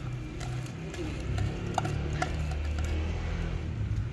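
Chicken karahi cooking in a steel wok over a gas burner: a steady low hum with a faint sizzle, and a few light clicks near the middle.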